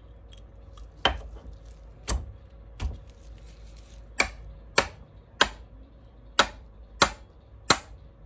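Sharp metallic knocks of steel paint-pump parts being handled and struck together: three irregular knocks, then six evenly spaced about two every second and a bit.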